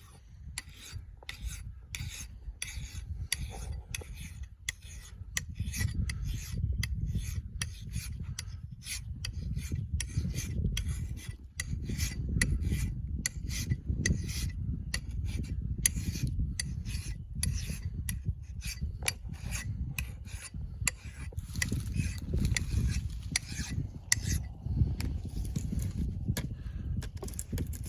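Flat metal file pushed across a steel axe blade in firm, repeated strokes, a rasping scrape on each push, over a low rumble.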